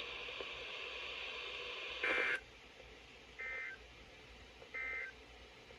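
NOAA Weather Radio sending the SAME end-of-message data bursts that close an alert: three short, shrill warbling bursts about 1.4 s apart. The first bursts over radio static, and the static cuts off with it.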